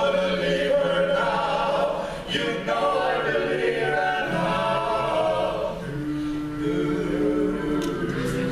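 Male vocal quartet singing a cappella in close four-part harmony, holding sustained chords that shift every second or two.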